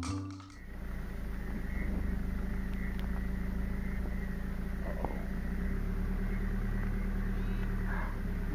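Safari game-drive vehicle's engine running with a steady low hum, heard from on board; a scrap of music cuts off about half a second in.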